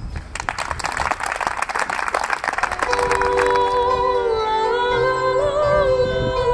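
Applause for about the first three seconds, then a woman singing a slow melody with vibrato, accompanied by plucked notes on a bandura.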